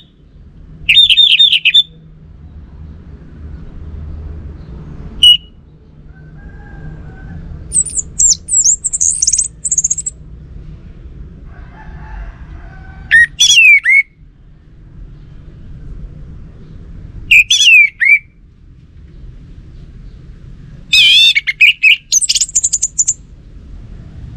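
Orange-headed thrush singing in short, varied phrases of quick warbles and trills a few seconds apart, some phrases much higher-pitched than others, over a steady low hum.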